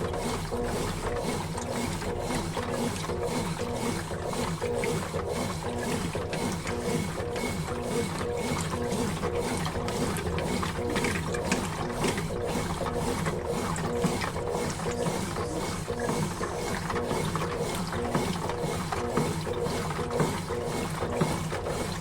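Consul Facilite 11 kg top-loading washing machine agitating its load in the rinse cycle: the motor and drive run steadily, with dense mechanical ticking and water churning in the drum.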